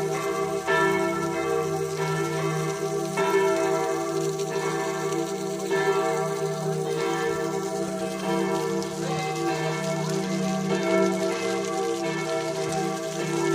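Town hall bells ringing in a steady peal, a new stroke about every second and a quarter, each one's hum still sounding under the next.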